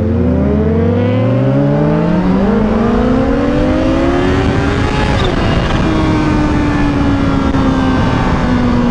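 Kawasaki Ninja H2's supercharged inline-four accelerating, rising in pitch, with an upshift about two seconds in. It pulls again to about five seconds, then settles into a steady note that eases slowly down.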